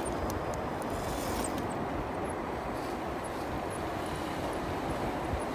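Steady low rushing noise of wind buffeting the microphone, with no clear motor whine standing out.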